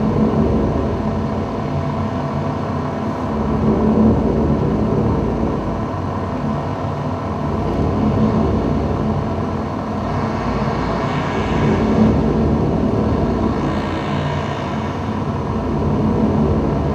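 Ambient drone soundtrack: a dense low rumble under several held tones, swelling and easing about every four seconds.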